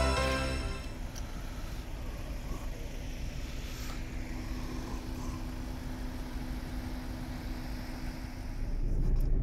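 A car engine running steadily, with a low rumble and a couple of steady low tones. Music fades out in the first second.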